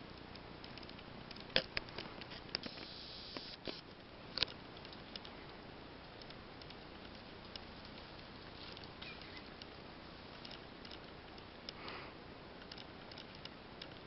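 Scattered sharp clicks and crackles over a quiet outdoor background. They are most frequent in the first few seconds, with fainter ticks later on.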